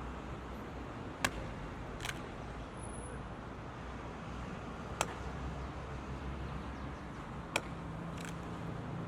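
Steady rumble of road traffic, with a few sharp, isolated knocks at irregular intervals.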